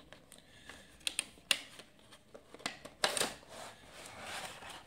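Cardboard product box being opened and its contents handled: a few sharp clicks and taps, then cardboard and paper rustling from about three seconds in.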